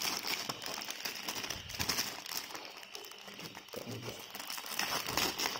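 Clear plastic kit bag crinkling as it is handled, in irregular rustles, loudest about two seconds in and again near the end.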